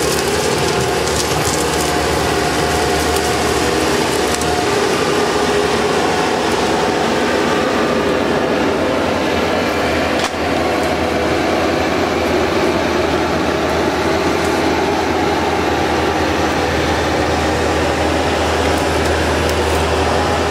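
Bobcat 773 skid-steer loader's diesel engine running steadily under load, with mechanical clatter from the machine as it pushes brush.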